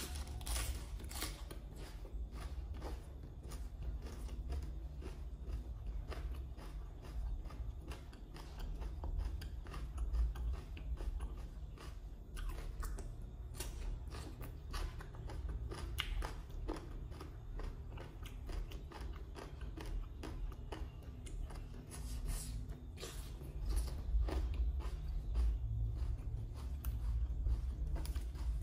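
A person biting and chewing mouthfuls of som tam (shredded green papaya salad) wrapped in fresh lettuce leaves, close to the microphone: crisp crunching bites and wet chewing, with a sharp crunch right at the start.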